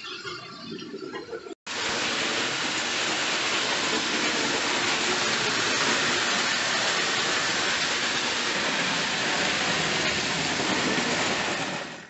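Hornby OO gauge model locomotive and coaches running along the track close by: a steady, even rushing noise. It starts after a short break about one and a half seconds in and cuts off suddenly near the end.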